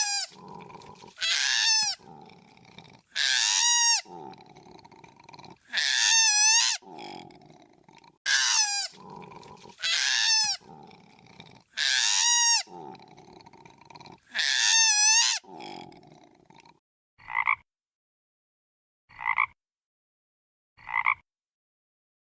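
Animal calls: loud pitched calls about every two to three seconds, with quieter sound between them, then from about sixteen seconds in a change to shorter, fainter calls about every two seconds with silence between.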